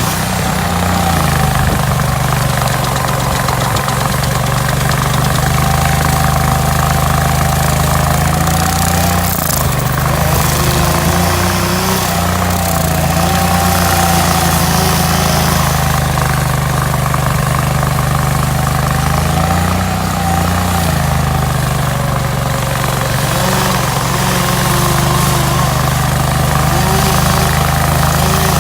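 Hydraulic stump grinder's engine running steadily at speed under a steady hiss, its pitch dipping briefly several times as it is loaded while grinding a stump.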